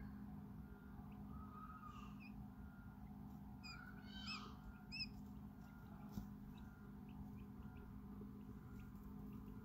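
Hours-old quail chicks giving a few faint, short peeps. There is a brief call about two seconds in and a quick run of chirps around four to five seconds in, over a steady low hum.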